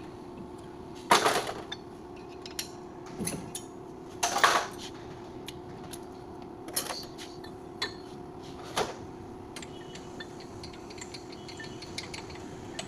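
Metal clinks and knocks of tools and brake parts being handled during a brake pad change: about six sharp, irregular hits, the loudest about a second in and about four and a half seconds in. A steady low hum runs underneath.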